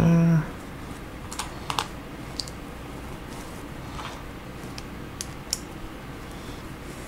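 Plastic LEGO bricks clicking as pieces are picked up and pressed onto a small model car: a handful of sharp, scattered clicks. A short voiced hum comes right at the start.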